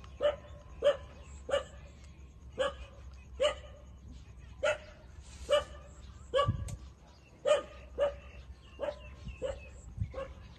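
A dog's short, high-pitched yelps repeated about once a second, each a brief separate call.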